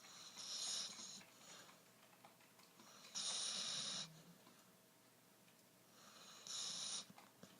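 Snoring heard close up: three noisy breaths about three seconds apart, the middle one the loudest and starting abruptly.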